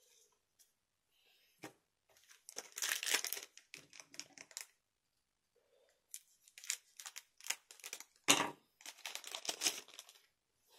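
Trading-card booster pack wrapper crinkling and tearing as it is opened, in several bursts of rustling, with a sharp tap about eight seconds in.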